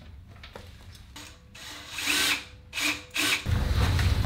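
Screws being driven into the heat press stand's control arm from underneath, with a small power screwdriver whirring in several short spurts. A loud steady low hum comes in near the end.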